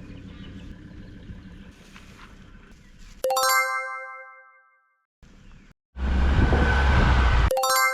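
A bell-like chime rings twice, once about three seconds in and again near the end, each strike fading over about a second and a half. Between the chimes come stretches of low rumbling noise that start and stop abruptly, the loudest just before the second chime.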